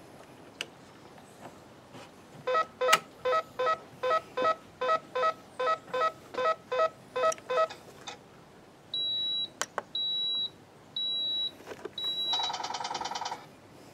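Electronic beeps from radio-control gear being powered up: a run of short pitched beeps about three a second for some five seconds, then four longer high beeps, then a brief buzzing tone near the end.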